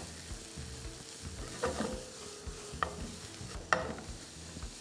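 Chopped vegetables sizzling as they are sautéed in a non-stick frying pan and stirred with a spatula, with a few short scrapes of the spatula against the pan, the loudest near four seconds in.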